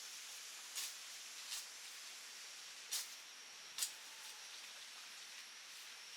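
Four sharp, short clicks or knocks, spread over the first four seconds, over a faint steady high hiss.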